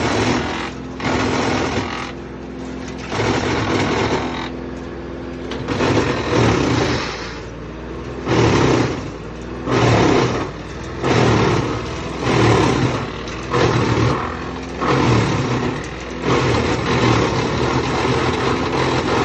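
Wood chipper chipping logs. Its cutting noise surges loudly again and again, about once a second through the later part, over a steady engine drone.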